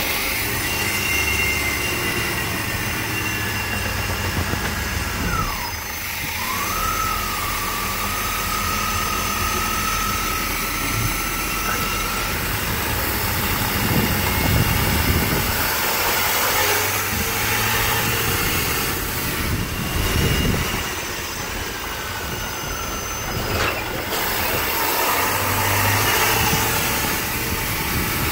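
350 small-block Chevy V8 running steadily just after starting, heard inside the bus with its engine cover open. A thin whistle slides down in pitch and then holds for the first dozen seconds.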